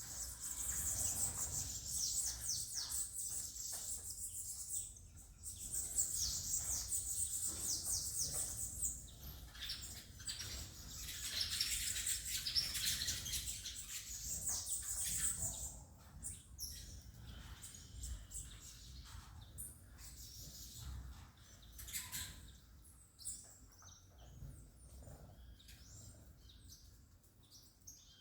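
Saffron finch (canário-da-terra) singing: rapid, high chirping phrases several seconds long, three of them in the first half, then fainter scattered chirps. A low rumble runs underneath.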